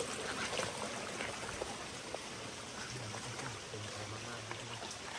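Small stream running and trickling over rocks, with a few faint footsteps on the stony trail.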